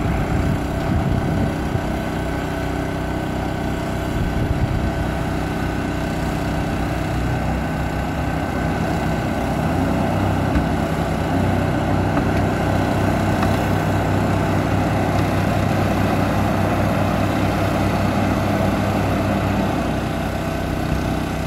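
A tractor engine running steadily while it strains to pull a boat trailer up a ramp, held back by a hull full of water. Its low note grows stronger for about ten seconds from about halfway through.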